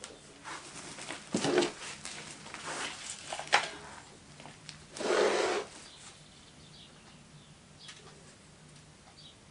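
Wooden moulding flask and moulding sand being handled as the cope is lifted off the drag: a few light knocks and scrapes of wood and sand, a louder half-second scrape about five seconds in, then faint scratching as a hand tool works the sand mould.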